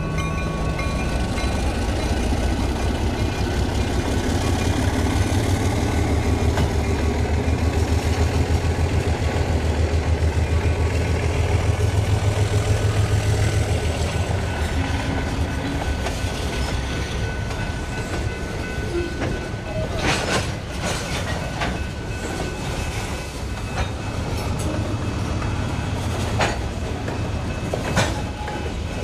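Diesel freight locomotive running past with a deep, steady engine drone that swells and then eases off. In the last part come sharp clicks and knocks of wheels over rail joints.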